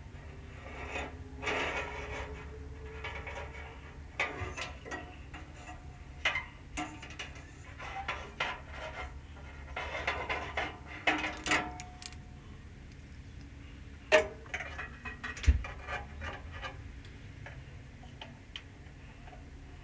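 Scattered clicks, knocks and light clatter of things being handled, with a couple of sharper knocks in the second half, over a steady low hum.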